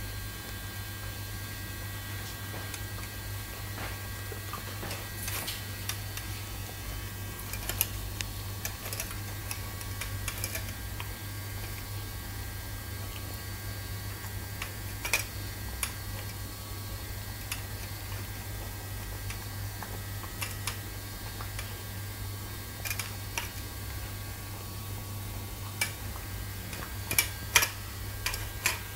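Giant Schnauzer puppy eating from a stainless steel bowl: scattered clicks and clinks against the metal, with a cluster near the end, over a steady low hum.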